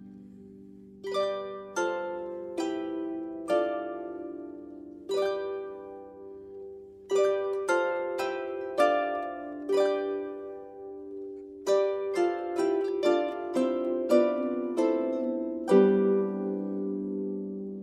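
Solo harp music: plucked notes and runs, each note ringing and fading, with a chord struck about two seconds before the end.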